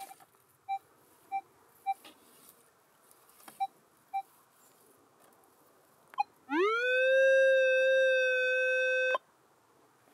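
Minelab Equinox 800 metal detector beeping: about six short pips as the coil sweeps over stony ground, then a long tone that slides quickly up in pitch, holds steady for about two and a half seconds and cuts off suddenly. This is the detector signalling a buried metal target.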